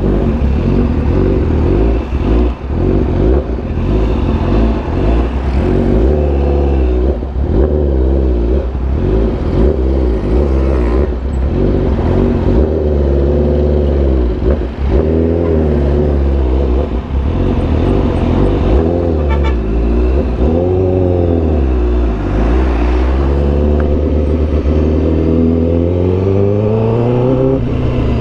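Honda CBR1000RR-R Fireblade's inline-four engine through an SC Project CRT exhaust, ridden at low speed in traffic. The revs rise and fall again and again with the throttle, then climb steadily near the end as the bike accelerates.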